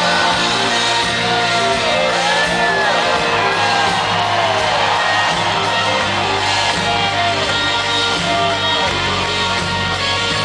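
Live rock band playing loudly in a large hall, heard from within the audience, with sliding lead lines rising and falling over sustained chords, and shouts from the crowd.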